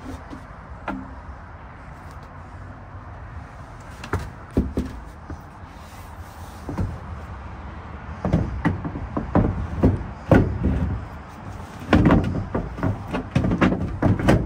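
Wooden bed boards and the pop-up roof panels of a classic Volkswagen bus camper knocking and rattling as they are handled by hand. There are a few separate knocks at first, then a busy run of clunks and rattles from about eight seconds in as the roof panel is pushed up.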